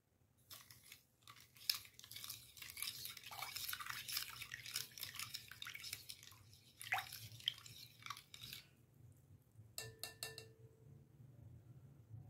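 A utensil whisking milk, sugar and yeast in a glass bowl: rapid scratchy stirring strokes against the glass, dissolving the sugar and yeast, that stop about nine seconds in. Then a few quick taps on the bowl that ring briefly, and a knock at the very end.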